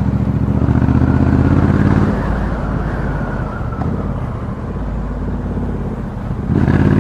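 Exhaust of a Triumph Bonneville T120's 1200 cc parallel-twin, fitted with a Customer aftermarket slip-on, giving a deep rumble ("ronco grosso") as heard from the rider's helmet. The note runs steady, drops back and quietens about two seconds in, then swells again, rising in pitch, near the end.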